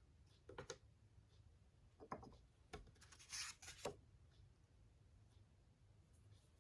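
Faint scraping and handling noises from fountain pen ink samples being swatched on paper. There are short scratchy strokes about half a second in and two seconds in, and a longer one from about three to four seconds in.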